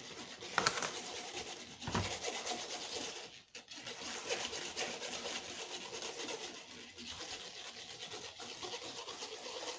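A straw stirring a soap, bath-foam and paint slime mixture around a plate: a continuous rapid scraping and rubbing, with a couple of knocks in the first two seconds and a brief pause about three and a half seconds in.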